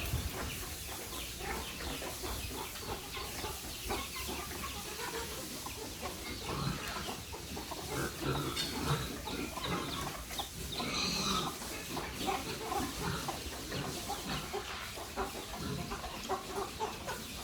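Farmyard livestock noise: a busy, continuous mix of many short animal calls.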